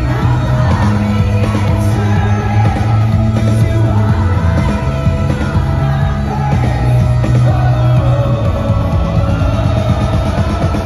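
Live worship band playing a rock song in an arena, with singing over drums, bass and guitars, and shouts from the crowd.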